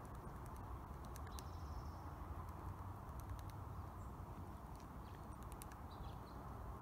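Red-breasted sapsucker tapping at tree bark: faint, irregular light taps, sometimes two or three close together, over a steady low rumble.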